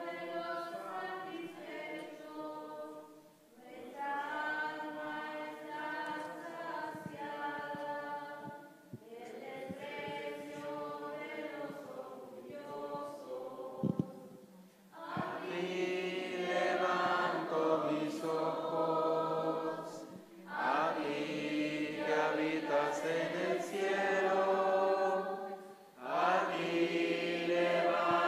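Voices singing a hymn together in phrases of a few seconds each, with short pauses between them for breath; the singing grows louder about halfway through.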